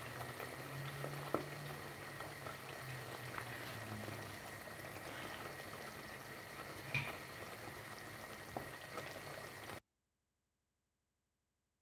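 Thick tomato sauce simmering in a pot on a gas hob, bubbling softly with scattered small pops. The sound cuts off abruptly about ten seconds in.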